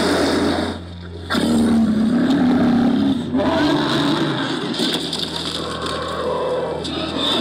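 Dinosaur roar and growl sound effects, loud and wavering in pitch, with a brief drop about a second in.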